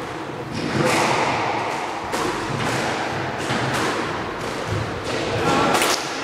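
Squash rally: the ball is struck and hits the court walls, giving sharp thuds roughly a second apart, with some reverberation after each.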